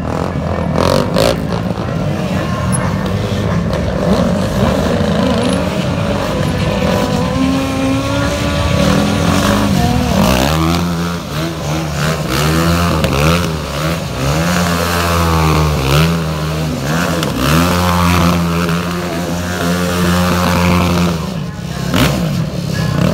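Quad bike and small motorbike engines running and revving, the engine pitch holding, dipping and rising again in the second half.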